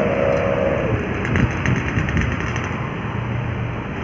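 A truck's engine labouring up a steep climb as it passes. A steady whine fades out about a second in, followed by a second or so of quick rattling clicks over the engine noise.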